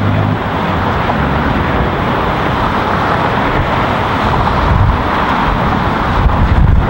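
Steady noise of fast car traffic passing close by, tyres and engines running together into a continuous wash.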